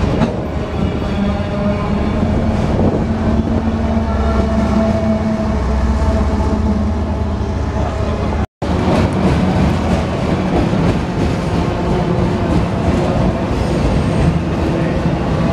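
A CSX diesel locomotive running at close range with a steady engine hum. After a sudden cut, a freight train of autorack cars rolls past with a rumble of wheels on rail.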